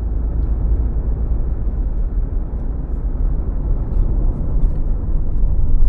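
Road and engine noise inside a moving car's cabin: a steady low rumble that grows a little louder toward the end.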